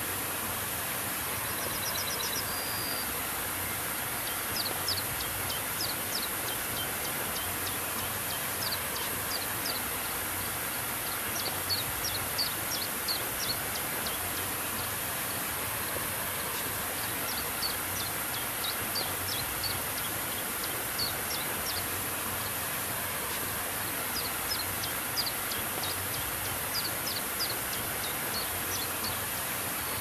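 Shallow stream flowing over flat rock, a steady rushing hiss, with a bird calling over it in repeated quick runs of short high chirps.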